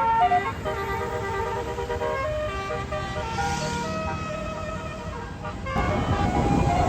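A tour bus's basuri melody horn playing a tune in stepped notes. Near the end a louder low rumble comes in under it.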